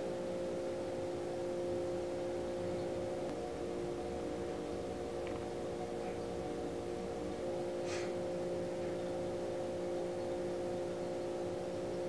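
A steady drone of several held tones, unchanging throughout, with a faint short click about eight seconds in.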